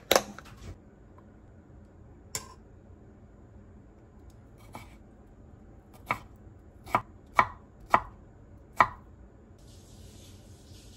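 Sharp, short knocks at uneven intervals: a loud one at the start, one about two seconds later, then a run of five between about six and nine seconds in.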